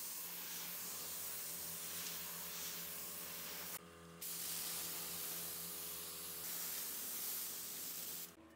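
Steady hiss of air with a low hum underneath. It drops out briefly about four seconds in and stops near the end.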